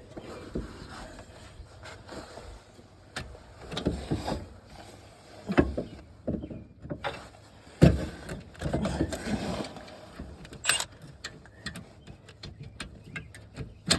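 Irregular metal clinks, knocks and scrapes from a socket, bolts and the hub being handled during fitting of a rear wheel hub assembly. Two louder knocks stand out, about six and eight seconds in.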